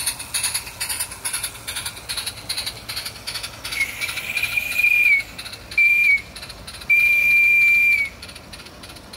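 Garden-scale model steam locomotive chuffing rhythmically as it hauls its train, then sounding its whistle three times: a long blast, a short one, and another long one.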